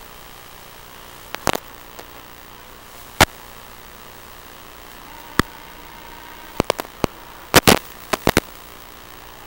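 Steady hiss from the small onboard camera microphone of a 210-size FPV racing quadcopter, broken by sharp crackling pops at irregular intervals. The pops come singly at first and then bunch together near the end.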